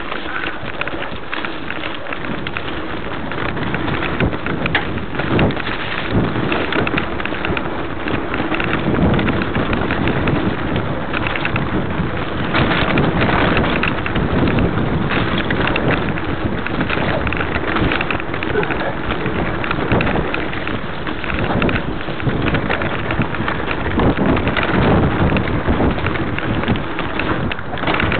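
Mountain bike descending a rough dirt and rock trail at speed: a continuous rushing noise of wind on the microphone and tyres over the ground, broken by many knocks and rattles from the bike over rocks and roots.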